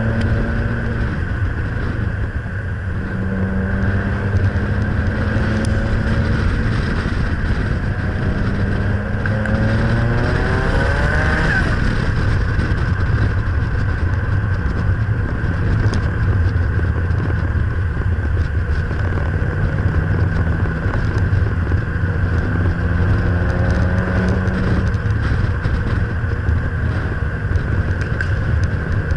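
Nissan Pulsar GTI-R's turbocharged SR20DET four-cylinder engine pulling along the road, its note climbing under acceleration several times and dropping back, over steady wind and road noise on the outside-mounted camera.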